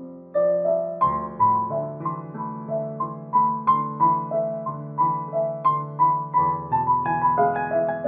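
Background piano music: an even run of notes, about three a second, over held bass notes.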